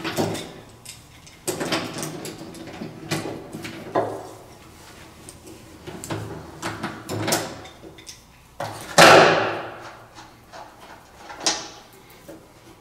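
Ratchet and socket working a blade nut loose on a Gravely mower deck's blade spindle, with irregular clicks and knocks of the tool against the blade and deck. The loudest knock comes about nine seconds in and rings briefly.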